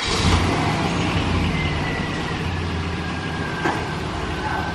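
Pickup truck engine idling steadily, a low even hum.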